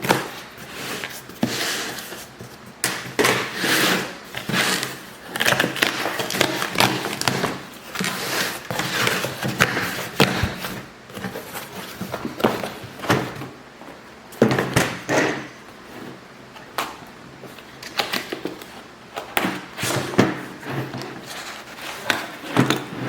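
Irregular handling noises: a stream of rustles, clicks and knocks as objects are moved about and set down.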